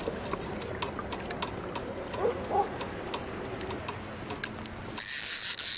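Fishing reel ticking irregularly as a big sturgeon pulls against the bent rod, over a steady wash of water and air noise. A short, loud burst of hiss comes near the end.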